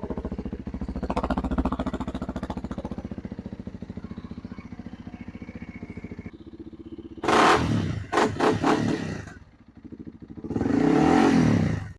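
Honda CRF300L's single-cylinder engine idling in neutral just after an oil change, running so the oil pump can circulate the fresh oil. There is a louder, rougher stretch about seven seconds in and another near the end.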